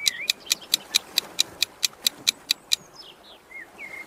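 Countdown timer sound effect: an even, fast ticking, about four or five ticks a second, that stops near the end, with faint bird chirps behind it.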